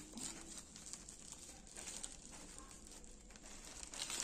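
Plastic mailer bag and silvery inner wrap crinkling and tearing as hands pull it open: faint, irregular crackles, a little louder at the start and near the end.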